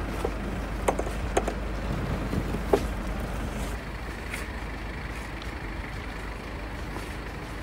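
Snow brush sweeping and knocking snow off a van's cab roof, with a few sharp knocks in the first three seconds, over a steady low rumble.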